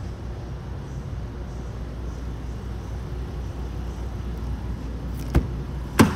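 A steady low hum, then near the end two sharp clicks, the second louder: the Range Rover Sport's front door handle being pulled and its latch releasing as the door opens.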